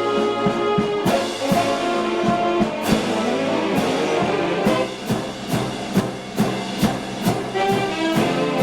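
Philadelphia Mummers string band music: full held chords from the reeds and strings over a steady drum beat of about two strokes a second.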